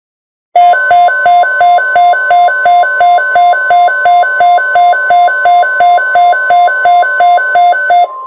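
NOAA Weather Radio 1050 Hz warning alarm tone, one loud steady tone that alerts receivers to an incoming watch or warning, overlaid by weather alert radios' own pulsing alarm beeps at about three a second. The beeps stop shortly before the end while the steady tone carries on.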